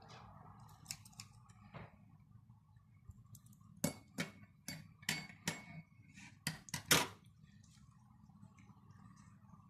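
Clinks and clicks of hard utensils and containers being handled, with a cluster of sharp knocks between about four and seven seconds in, over a steady low hum.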